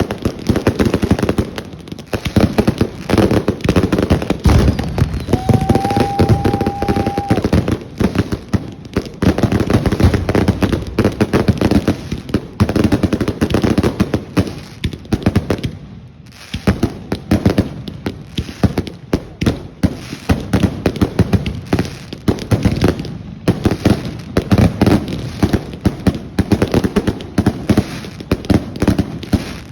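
Fireworks going off in a dense, continuous string of rapid bangs and crackles. A steady whistle sounds for about two seconds about six seconds in, and the bangs thin out briefly around sixteen seconds in.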